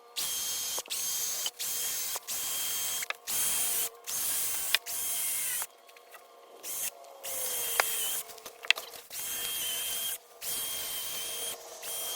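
A handheld power tool run in short repeated bursts, about one a second, over a steady whine.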